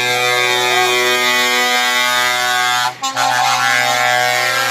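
Truck air horn blown in one long steady blast, cut off briefly about three seconds in and then sounded again.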